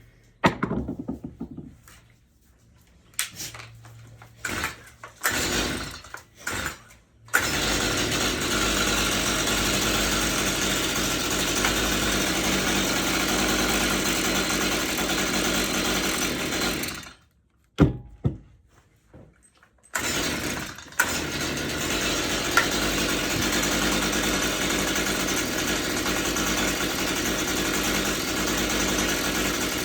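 Stihl MS-162 two-stroke chainsaw being pull-started: a few short rope-pull bursts, then it catches about seven seconds in and runs steadily at a raised idle. It dies about ten seconds later and starts again after a couple more pulls, running despite water sprayed into its intake, so it is not hydrolocked.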